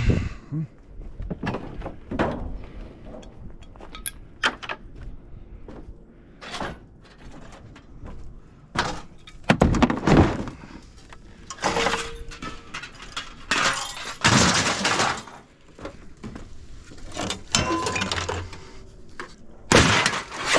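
Scrap being moved and tossed onto a pile: a string of irregular clatters, knocks and thuds, the loudest crashes about ten and fifteen seconds in.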